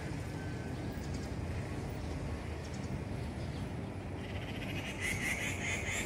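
A bird's harsh, rapidly pulsed call starts about four seconds in and lasts about two seconds, over a steady low rumble.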